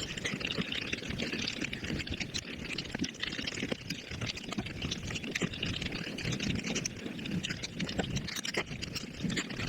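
Close-miked eating sounds played back sped up: rapid wet chewing and lip-smacking running together into a dense, continuous crackle of small clicks.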